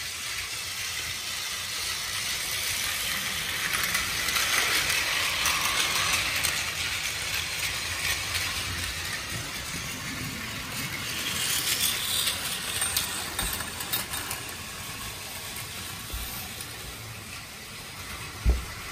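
Battery-powered plastic toy trains running on blue plastic track, a steady motor whir and wheel rattle that swells twice as a train passes close. A single sharp knock near the end.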